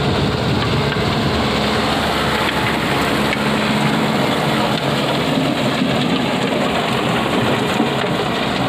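Kubota MU5501 tractor's diesel engine running steadily under load, with a rotary tiller working behind it: a constant engine drone with a rough, noisy churning over it.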